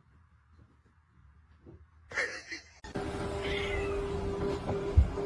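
About two seconds of near silence, then a cat meowing, with a steady hum under it and a thump near the end.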